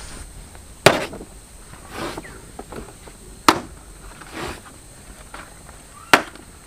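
Banana leaves being cut with a knife: three sharp chops about two and a half seconds apart, with softer rustling of the leaves between them.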